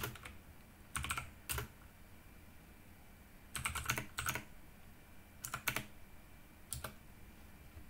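Computer keyboard typing in about four short bursts of clicking keystrokes, with pauses between them.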